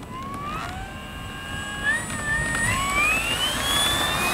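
Electric motor and propeller of a foam radio-controlled P-51 Mustang model spooling up for takeoff: a whine that climbs in pitch in steps as the throttle is opened, growing louder toward the end.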